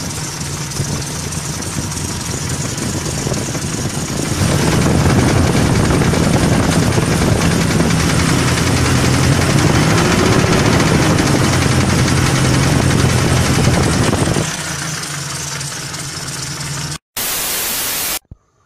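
ZMZ-405 four-cylinder petrol engine of a GAZelle van running with a knock, which the owner calls its knocking. It runs louder for about ten seconds in the middle, pitch rising and falling, then settles back. Near the end it cuts off suddenly, then comes a second of hiss.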